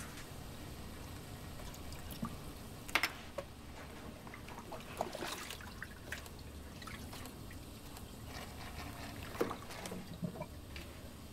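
Water trickling and dripping, with scattered light clicks and knocks over a low steady background hum.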